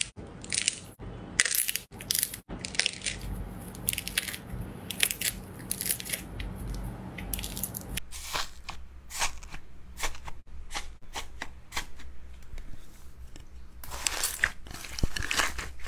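Hands squeezing, stretching and poking slime, giving rapid irregular crackling and popping clicks; after a cut about halfway, grainy orange slime is pressed and kneaded in a glass dish.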